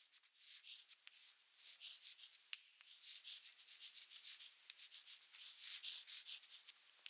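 Faint, irregular scratchy rustling: a run of hissy swishes of uneven length, with a few sharp ticks scattered through, the clearest about two and a half seconds in.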